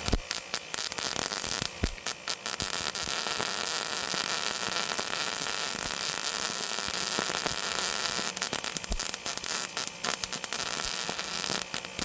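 Eastwood MP140i MIG welder arc crackling and hissing as it lays weld on a thin sheet-metal patch. It comes in stuttering bursts for the first couple of seconds, runs as a steady bead for several seconds, then breaks into short bursts again near the end.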